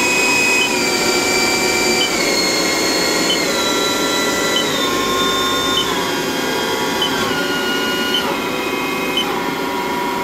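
Haas ST20 CNC lathe spindle running with a steady electric whine that drops in pitch in a series of steps, about one a second, as the spindle is brought down from 2500 RPM; a short blip sounds at each speed change.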